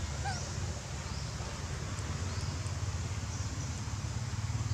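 Outdoor ambience: a steady low rumble underneath, with a short rising high chirp about a third of a second in and a few faint ticks around the middle.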